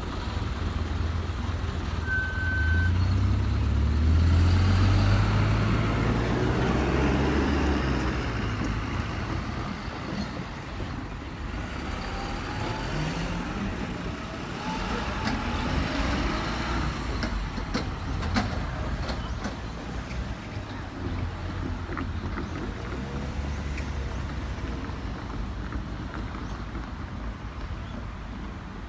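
Keikyu 1000-series electric train running past the level crossing: a heavy low rumble, loudest in the first several seconds, then motor whine gliding upward in pitch around the middle, with scattered short clicks.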